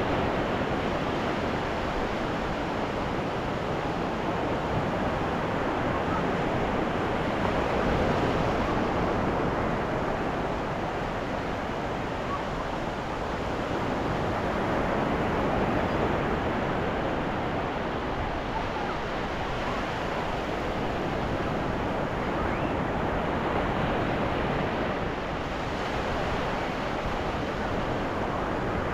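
Ocean surf washing onto a beach: a steady rushing of waves that swells and eases every several seconds.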